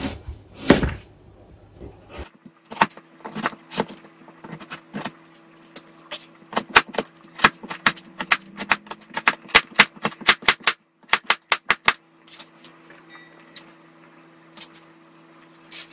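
Kitchen knife chopping a carrot on a cutting board: a quick, uneven run of sharp knocks, several a second, that stops a few seconds before the end.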